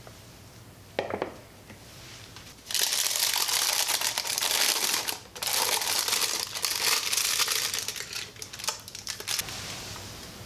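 Disposable plastic piping bag filled with dulce de leche crinkling loudly as it is gathered and twisted closed at the top, after a short knock about a second in.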